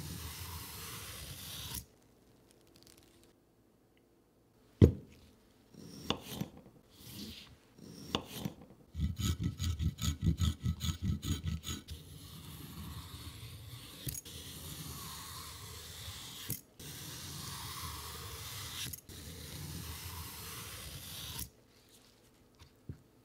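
Y-shaped vegetable peeler shaving thin ribbons off a fresh cucumber on a wooden board: long scraping strokes, four in a row in the second half, each a couple of seconds long. A sharp knock about five seconds in, and a quick run of rasping strokes, about five a second, in the middle.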